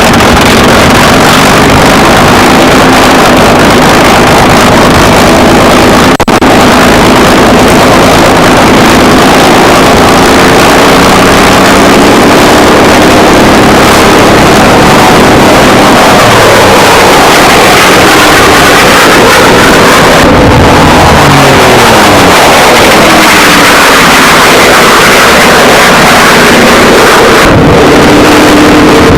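Aircraft engines running loud and steady, with their pitch sliding down through the middle stretch as one passes or throttles back.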